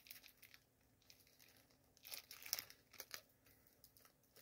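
Faint crinkling and tearing of plastic shrink-wrap being peeled off a CD, with a few short crackles about two and three seconds in.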